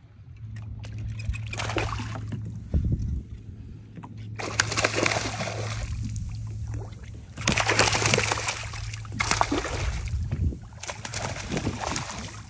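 A hooked fish thrashing at the water's surface, splashing in several bursts, over a steady low hum.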